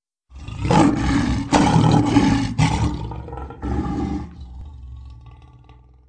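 A lion's roar: a run of loud roaring pulses that then fades away over the last two seconds.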